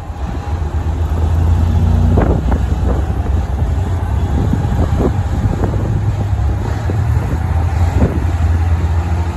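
KiHa 189 series diesel multiple unit pulling away from a platform, its diesel engines running under load with a low, steady drone that swells about a second and a half in. Wind buffets the microphone now and then.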